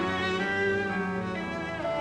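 Background music played on bowed strings, violin and cello, with sustained notes changing every half second or so.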